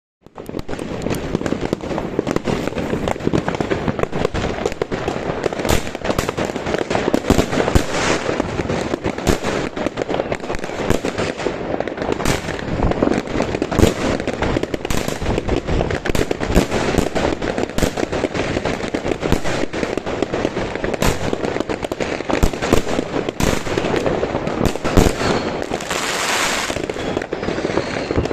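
A Vuurwerkland 'Stars over Paris' 25 mm, 21-shot firework cake firing: a dense run of shots and bursts over continuous crackling noise, starting abruptly just after the beginning and keeping up throughout.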